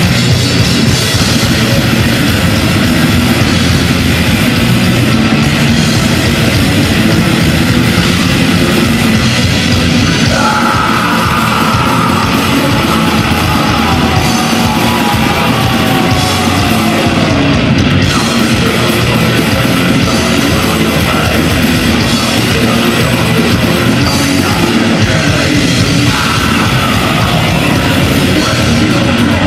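Heavy metal band playing live: dense, loud distorted guitars, bass and drums. A high held note comes in about ten seconds in and slides slowly down, and another comes in near the end.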